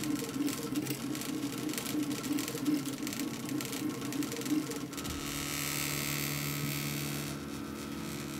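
RepRap Mendel 3D printer's stepper motors whining and buzzing as the extruder head shuttles rapidly in a test print at a 100 mm/s feed-rate setting. About five seconds in the pulsing gives way to steadier, held tones with a hiss over them as the head makes a longer move.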